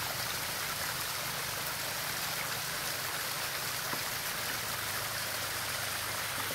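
Hot spring water running steadily down a mineral-crusted rock face in a shallow cascade.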